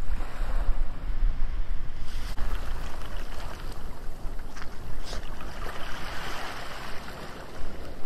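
Small waves washing up and draining back over a pebble beach, with wind rumbling on the microphone.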